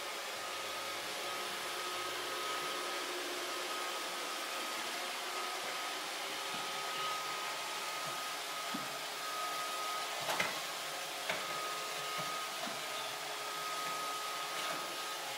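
iRobot Roomba robot vacuum running over a wooden floor: a steady motor whir and hiss with a thin high whine, broken by a few short knocks about two-thirds of the way in.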